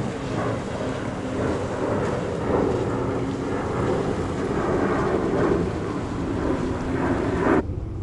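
Steady distant engine drone under wind buffeting the microphone, cutting off abruptly near the end.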